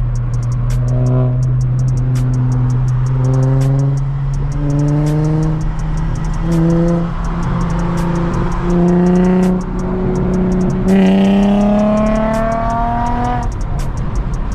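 Music with a quick, even hi-hat pattern, a long low bass note and a rising melodic line, over the steady running noise of a car.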